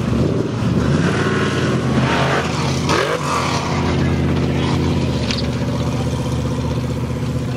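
Formula Offroad buggy engine revving hard under full throttle on a steep climb, the pitch rising sharply near the start and again about three seconds in, then holding a steadier loud note.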